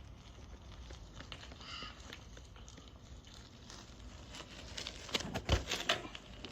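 A BMX bike coming down from a trick attempt: a quick cluster of clattering knocks about five seconds in, the loudest a heavy thump.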